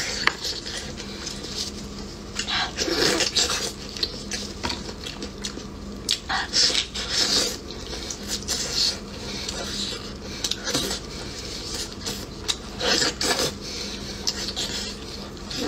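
Braised bone-in meat being torn apart by hand in plastic gloves: irregular wet, sticky tearing and squelching with glove crinkle and light clicks, and eating sounds mixed in.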